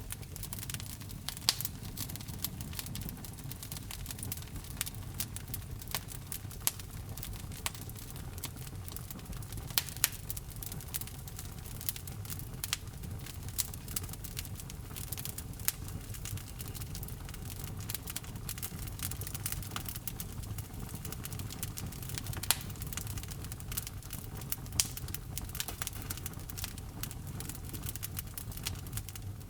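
Wood fire burning in a fireplace: a steady low rumble of the flames under constant small crackles, with a few louder pops of the burning wood now and then.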